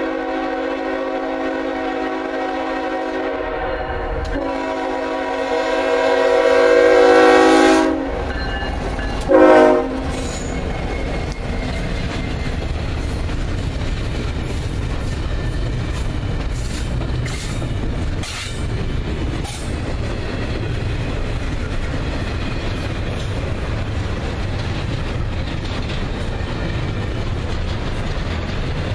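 Nathan K5HL five-chime horn on a Norfolk Southern GE ES44AC locomotive sounding two long blasts, growing louder as it approaches, then a short blast. After that come the steady rumble, wheel noise and occasional clanks of doublestack intermodal cars rolling past at about 25 mph.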